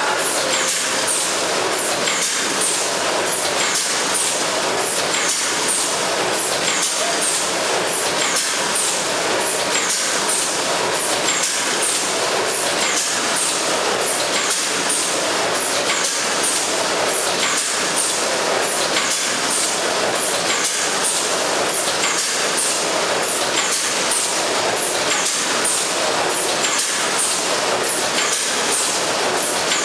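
Automatic horizontal pouch-packing machine running: a steady mechanical clatter with short, sharp hisses repeating about twice a second as its gripper and sealing mechanisms cycle.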